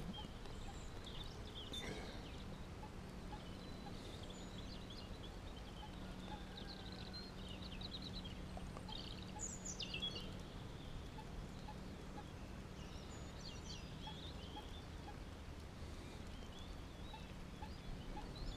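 Small birds chirping and calling faintly every few seconds, over a quiet outdoor background with a faint steady low hum.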